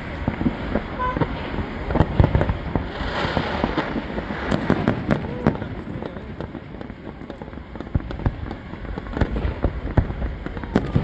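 Aerial fireworks display: a dense run of bangs and crackling bursts that thins a little midway, with a few brief whistles.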